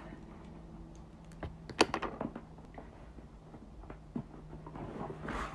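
A cardboard shipping box being cut open with scissors: a run of sharp snips and clicks, the loudest about two seconds in, with another near four seconds, then rustling near the end.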